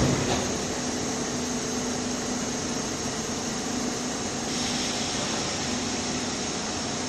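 Steady hum and hiss of a subway train standing at the platform, its on-board air-conditioning and equipment running, with faint steady tones under the noise.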